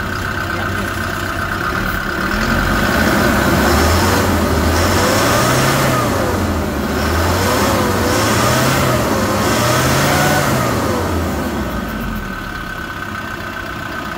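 Kia Bongo 3's common-rail diesel engine running just after starting. It idles, is revved up and let back down about four times, then settles to a steady idle near the end. The engine now starts at the first turn of the key after a fuel injector rebuild and a new fuel filter.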